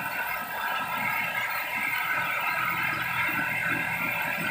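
Richpeace fully automatic template sewing machine running, its sewing head stitching quilting lines through a down-jacket panel: a steady, unbroken machine sound.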